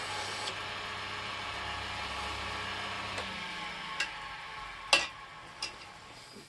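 A wood lathe's electric motor running with a steady hum, which changes after about three seconds and then slowly fades, with a few sharp knocks, the loudest about five seconds in.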